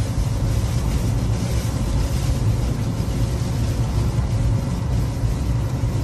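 Steady low rumble of a vehicle moving through a blizzard, mixed with a rushing hiss of wind noise.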